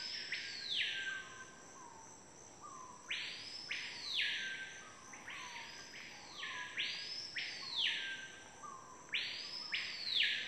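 Bird calls: a sweeping whistle that rises and then falls, repeated about every one to two seconds, often two overlapping at once, over a steady high-pitched drone.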